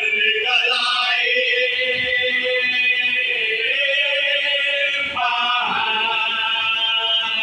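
A group of men chanting a marsiya, an Urdu mourning elegy, together without instruments, holding long drawn-out notes. The melody moves up to a higher note about five seconds in.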